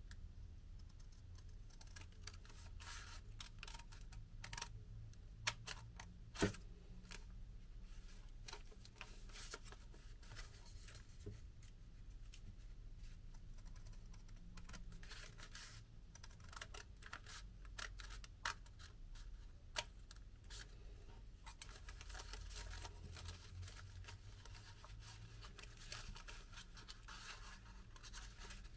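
Scissors snipping through several layers of folded paper: a run of faint, short snips and clicks, with one sharper click about six seconds in.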